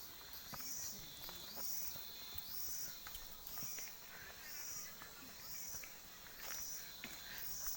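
An insect calling in the forest, a high pulsing call repeated about once a second, each pulse rising in pitch, with scattered small clicks and rustles underneath.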